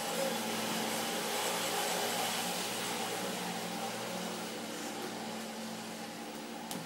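A motor running steadily, a low hum with a hiss over it that holds throughout; a single sharp click near the end.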